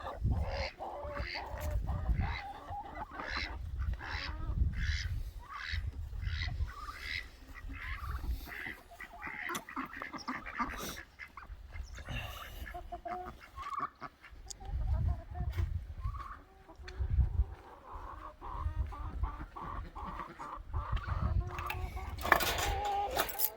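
Chickens and other poultry calling and clucking, over and over, with a low rumbling noise in patches underneath.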